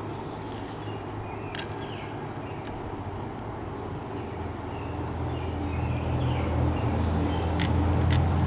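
Low rumble of a vehicle engine growing louder over the last few seconds, with a few sharp clicks of small objects being handled.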